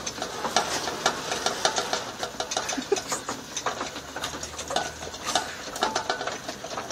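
Homemade wood gasifier running with its air blower: a low steady hum under rapid, irregular crackling and rattling clicks while the producer gas burns as a flare at the end of the outlet hose.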